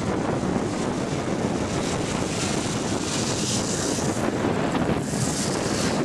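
Wind buffeting the camera microphone: a steady rushing noise, with hissier surges about two to three seconds in and again near the end.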